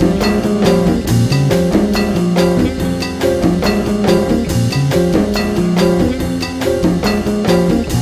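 Instrumental background music with a steady drum beat.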